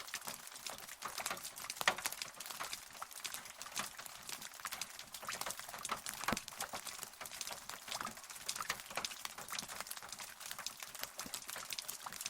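Rain falling steadily: a dense, irregular patter of separate drops tapping close by, with a few sharper taps standing out.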